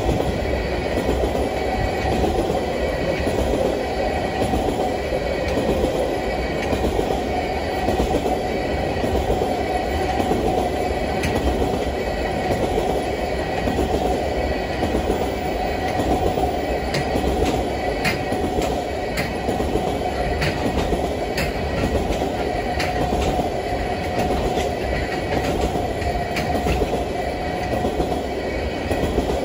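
Freight train of tank cars rolling past close by: a steady rumble of steel wheels on the rails, with a regular clickety-clack about every two seconds as the wheelsets pass over rail joints.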